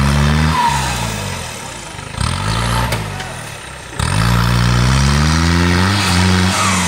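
Modified off-road jeep's engine revving hard in three bursts as it climbs a rutted mud slope, the pitch rising and falling with each burst; the last and longest burst starts about four seconds in.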